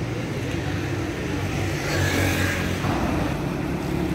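Road traffic: motor vehicle engines running with a steady hum, the noise swelling for a moment about two seconds in.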